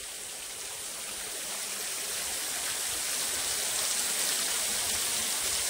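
Water from a hillside spring falling in thin streams and drips off a rock overhang and splashing below, a steady rush that grows gradually louder.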